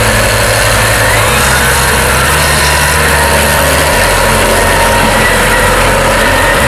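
Case IH Puma 225 tractor's six-cylinder diesel engine running steadily under load, loud and close, as it pulls a New Holland big square baler through straw.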